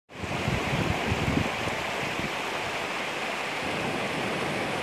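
Steady rushing of a mountain stream tumbling over rocks below Mahon Falls, with the 80 m waterfall itself in the distance. Some low buffeting on the microphone in the first second and a half.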